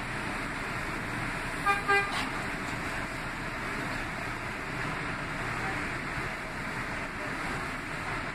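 Two short horn toots about two seconds in, heard over the steady running rumble of an R179 subway train on elevated track as it enters a station.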